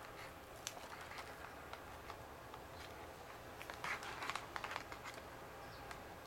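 Clear plastic packaging and a plastic tray being handled: scattered light clicks, with a short burst of crinkling and clicking about four seconds in.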